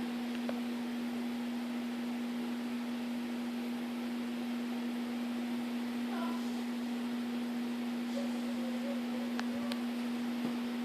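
Steady low electrical hum, one unchanging tone, over a faint hiss.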